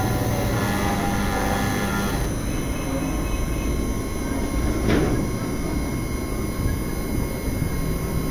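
CNC spindle turning a 2 mm four-flute carbide end mill at about 10,000 RPM, milling brass with a steady mechanical whine and high squealing tones. The higher squeal drops away a little over two seconds in, and a single sharp tick comes about five seconds in.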